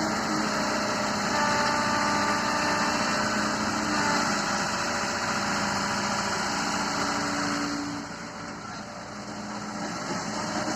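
Engine of a heavy machine running steadily, dropping in level about eight seconds in and building back up near the end.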